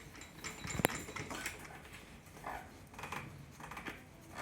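Small handling noises of tools and parts on a repair bench, with one sharp click about a second in.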